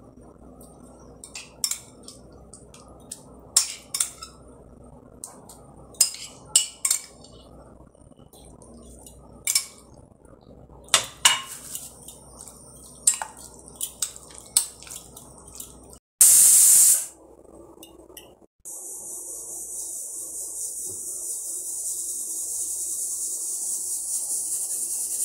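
Irregular clinks and taps of a utensil against a ceramic plate as food is mixed in it. About two-thirds of the way through comes a short loud burst of noise, then a steady hiss that slowly grows louder.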